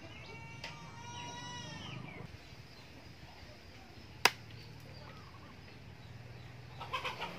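A single sharp knock about four seconds in as the steel knife blade meets the top of a wooden post. Before it, an animal call rises and bends for about two seconds, and near the end there are short clucking calls.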